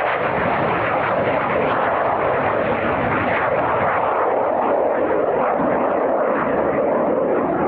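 Dornier Alpha Jet's twin Larzac turbofans at takeoff power: a loud, steady rush of jet noise as the jet climbs out, its highest tones slowly dulling as it draws away.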